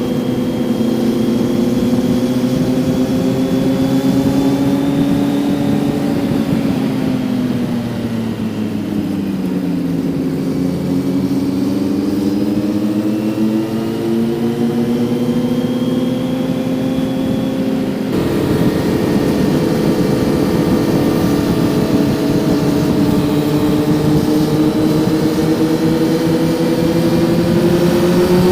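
Kawasaki Z900 inline-four motorcycle engine heard from onboard while riding: the revs hold steady, drop off about a quarter of the way in, then build slowly again. The engine note changes abruptly about two-thirds through and rises gently toward the end.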